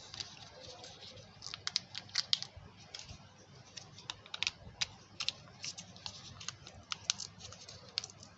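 Irregular light clicks and crinkles of a phone accessory's packaging being handled while a USB Type-C cable is taken out of its wrapping.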